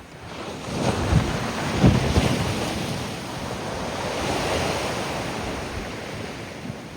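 Sea waves breaking on a beach: a wave swells and crashes about a second in, then washes out in a long fading rush, with wind buffeting the microphone.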